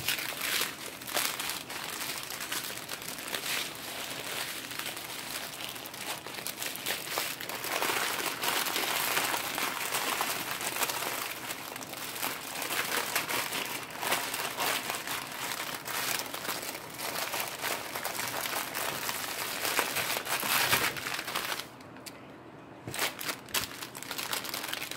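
Clear plastic packaging crinkling and crackling as small plastic bags of diamond-painting drills are pushed back into a plastic sleeve by hand, with a short lull near the end.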